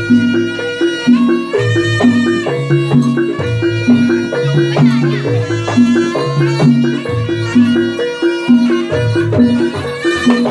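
Live Javanese jaranan (Turonggo Samboyo) ensemble music, loud and continuous. A looping low bass figure keeps a steady beat under a held, reedy-sounding melody line, with a short sliding note about halfway through.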